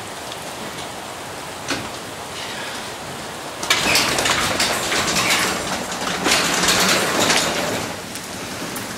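Hail and rain falling, a steady dense patter of hailstones that swells much louder about three and a half seconds in and eases back near the end.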